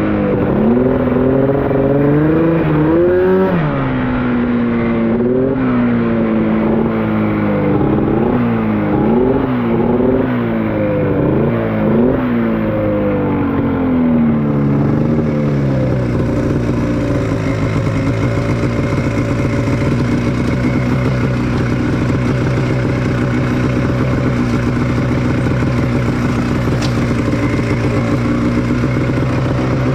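Honda Pilot off-road buggy's engine under way, revving up and down repeatedly for roughly the first half, then running at a steady speed through the second half.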